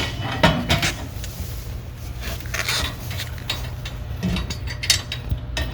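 Scattered metal clinks and knocks of a steel support plate and bolts being fitted to a wheelbarrow frame by hand, over a low steady hum.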